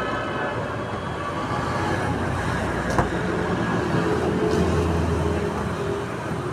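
Steady street traffic noise with a low engine hum, and one sharp knock about three seconds in.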